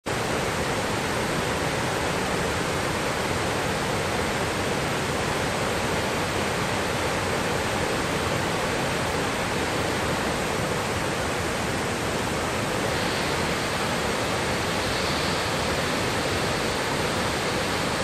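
Thi Lo Su waterfall, a large multi-tiered falls, rushing steadily: an even hiss of falling water at a constant level.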